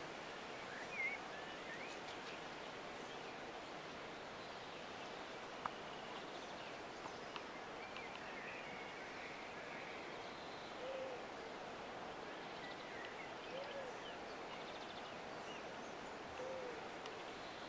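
Quiet outdoor evening ambience with distant birds: scattered short high chirps, and in the second half three low hooting calls about three seconds apart.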